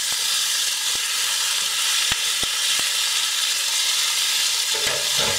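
Chicken breast fillets sizzling in a hot oiled frying pan on full heat, a steady loud hiss, as they are turned over with a wooden spatula. A few sharp clicks stand out in the first three seconds.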